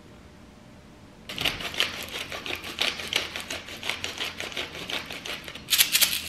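Rapid, dense clicking and tapping that starts about a second in, with a louder flurry near the end.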